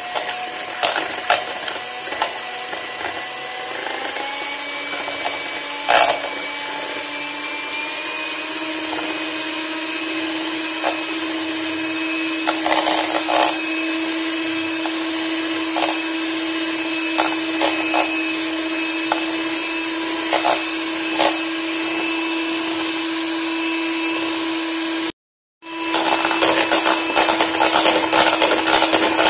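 Handheld electric mixer whipping liquid cream to a foam in a plastic bowl: a steady motor hum whose pitch rises a little in the first few seconds, with the beaters clicking against the bowl. It cuts out for a moment near the end, then carries on with more rattling.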